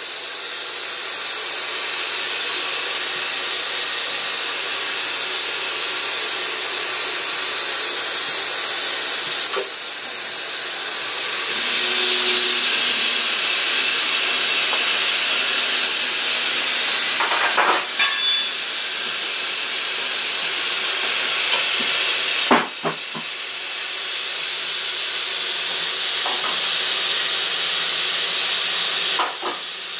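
Bridgeport Torq-Cut TC4G CNC vertical machining centre homing its axes to their reference positions: a loud, steady hiss that shifts in level several times, with a couple of short clunks about 18 and 22 seconds in as the axes move and stop.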